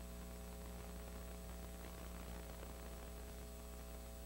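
Faint, steady electrical hum with an even hiss: recording noise and no other sound.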